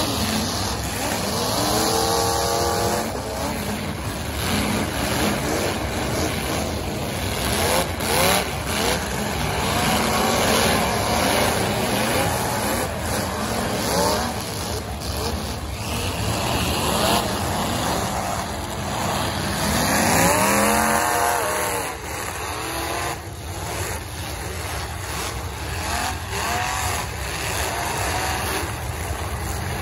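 Engines of full-size demolition derby cars revving hard over and over, their pitch climbing and dropping, with the sharp bangs of cars crashing into each other several times.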